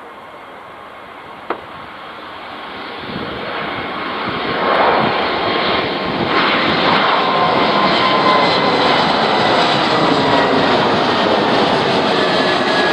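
Airbus A220-300 jet's Pratt & Whitney PW1500G geared turbofans at takeoff power, growing steadily louder over the first few seconds as the airliner comes closer, then a loud, steady jet noise with a whine whose pitch slowly drops as it passes. A single short click about a second and a half in.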